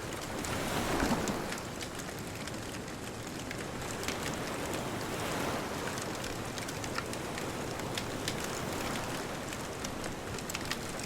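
Wood bonfire crackling with many small sharp pops, over the steady wash of distant ocean waves, one wave swelling louder about a second in.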